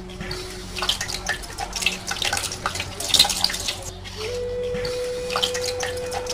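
Water splashing and dripping in irregular spatters, the sound of water running into a sink, over a held steady tone that steps up in pitch about four seconds in.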